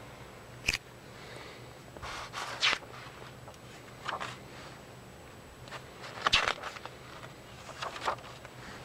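Pages of a paper service manual being handled and turned, a short rustle or flap every second or two over a low steady hum.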